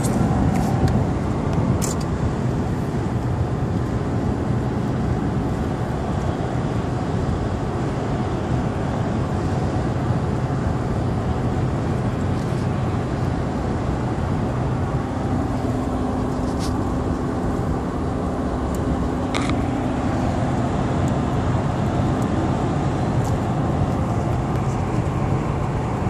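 Steady road and engine drone heard inside a moving vehicle's cabin on a highway. A low hum joins in about fifteen seconds in for several seconds, and there are a few short ticks.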